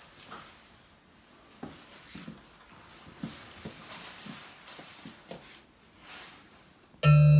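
Faint footsteps and clothing rustle in a small room, a few soft scattered knocks. Near the end, loud music starts suddenly: a held low chord with bell-like pings above it.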